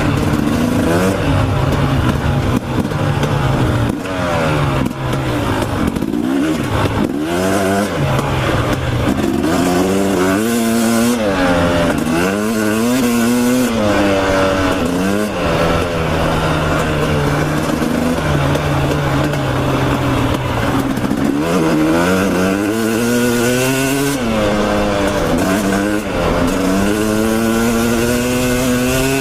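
Dirt bike engine being ridden hard, revving up in rising sweeps, dropping back and climbing again over and over as the rider works the throttle and gears, with wind noise throughout.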